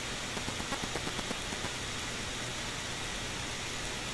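A steady hiss, with a short run of light taps and scrapes in the first second and a half: a spoon scooping cooked ground-meat filling out of a frying pan and spreading it over potato slices in a baking dish.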